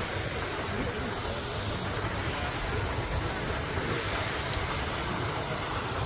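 Waterfall pouring into a rock pool: a steady, even rushing of water.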